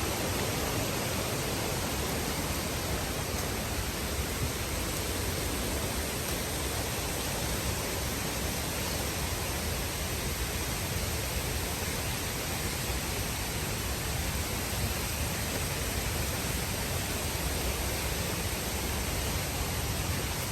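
Waterfall rushing: steady, unbroken noise of falling water.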